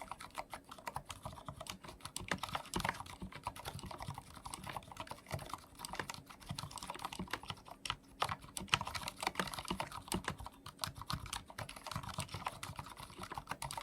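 Continuous fast typing on a full-size mechanical keyboard with Cherry MX Silent Red linear switches: a steady stream of soft, muffled key clicks.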